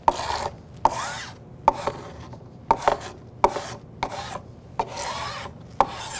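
Household paint scraper pushed along the glue joints of a wood panel, scraping off beads of wood glue that has set for about an hour and skimmed over. It comes as repeated strokes about a second apart, each starting with a sharp click.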